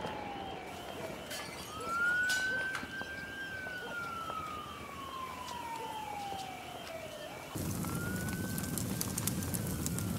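Emergency-vehicle siren wailing: each cycle rises quickly, then falls slowly over several seconds, with a second, faster warbling siren tone behind it. About three-quarters of the way in, a louder crackling hiss joins the siren.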